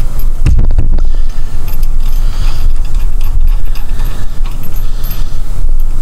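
Small metal hardware (washers and nuts on a suspension U-bolt) clinking and scraping as it is handled, with a cluster of clicks about half a second in. A loud low rumble runs underneath throughout.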